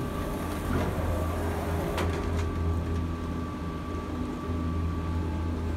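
Gondola lift running at its top station: a steady low mechanical hum with a constant high whine as a cabin travels along the cable, and two sharp clicks about two seconds in.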